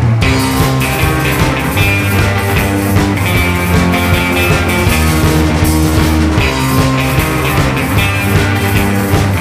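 Instrumental surf rock band recording: electric guitars playing a melody over an electric bass line and a steady drum beat.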